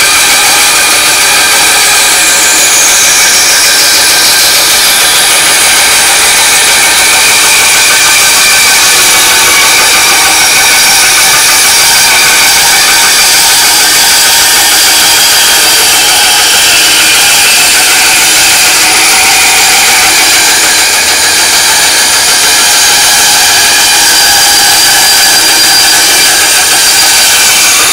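TOTAL benchtop band saw running steadily while its blade cuts a curve through a thick block of wood, with a high tone sliding down a few seconds in. The saw makes an off noise that the operator puts down to a freshly changed blade not yet properly adjusted, so that it drifts to one side.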